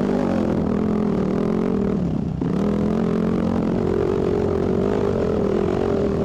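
Enduro motorcycle engine running steadily under load up a rough trail. The engine note dips sharply for a moment about two seconds in, then picks back up.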